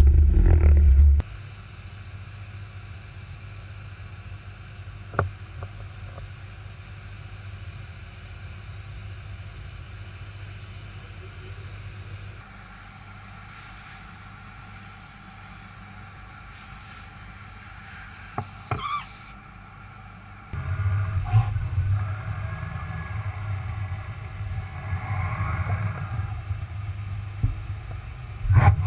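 Steady low machine hum from a CNC machine cell, dropping abruptly quieter about a second in and rising loud again about two-thirds of the way through, with a few sharp mechanical clicks along the way.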